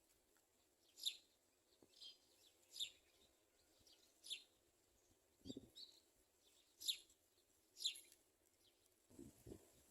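House sparrow chirping: single short, high, falling chirps about once a second. There is a soft low thump about midway and a few more near the end.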